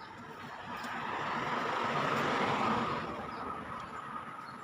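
A vehicle driving past on the road. Its tyre and engine noise swells over about two seconds and then fades away.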